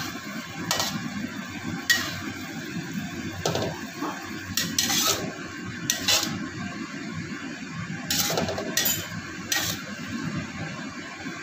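Metal ladle scraping and clinking against a steel wok as water spinach is stir-fried, in irregular strokes (about eight or nine, some in quick pairs) over a steady low noise.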